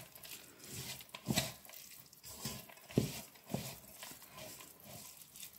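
Raw red lentils coated in oil and spices being mixed by hand in an aluminium pot: soft, irregular rustling and squishing of the grains, with a few sharper sounds as the hand works against the pot.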